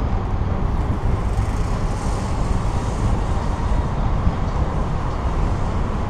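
Steady road traffic noise from cars driving close alongside a moving bicycle, with wind buffeting the microphone.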